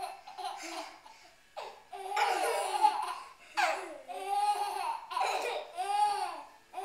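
Baby laughing in several high-pitched bursts, with short pauses between them.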